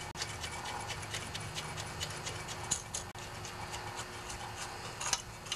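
Faint, fast, uneven ticking over a low steady hum, with two louder metallic clicks about two and a half and five seconds in, from the washer and nut being fitted by hand onto a small engine's flywheel.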